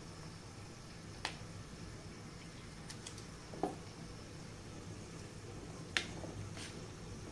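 Kitchen knife cutting button mushrooms on a plastic plate: a handful of sharp, irregular clicks as the blade goes through and taps the plate, the loudest about six seconds in, over a faint steady hum.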